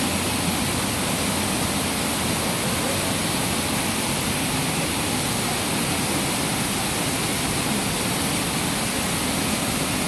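Waterfall pouring over rocks into a pool: a steady, even rush of falling water.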